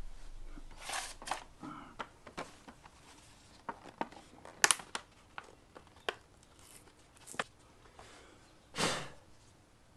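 Scattered light clicks, taps and short rustles as the mower engine's air filter and its cover are handled and swapped, with a longer rustle near the end.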